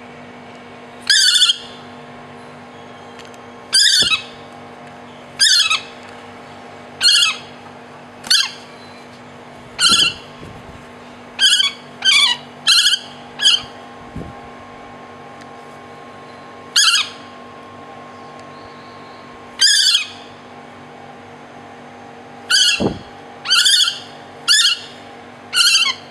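Juvenile large hawk-cuckoo calling while held in the hand: short, loud calls that fall in pitch, about sixteen of them, mostly a second or a few seconds apart, with quick runs of three or four about halfway and near the end.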